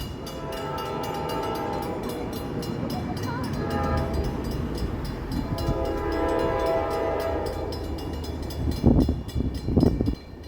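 Railroad crossing warning bell ringing steadily while an approaching train sounds its horn in two long blasts. Two loud, short bursts of noise come near the end.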